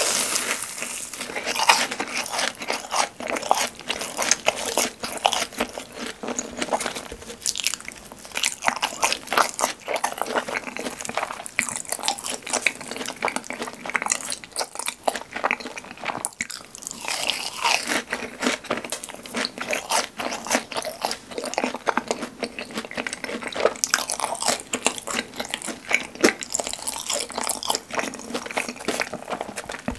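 Close-miked eating of crisp fried cheese balls: a dense, steady run of crunching bites and chewing.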